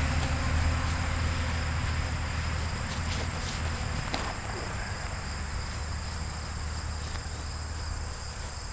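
Steady high-pitched chorus of field insects such as crickets, over a low steady rumble.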